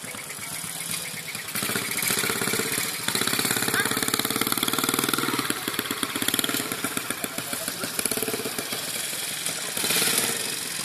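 Small quad bike engine running with a rapid pulsing note, growing louder about a second and a half in and staying loud for several seconds, then rising and falling, with another swell near the end as the quad passes close.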